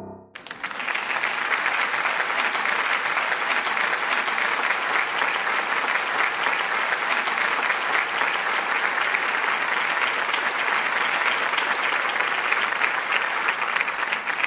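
Applause with many hands clapping, starting about half a second in as the last notes of piano music end, and going on steadily.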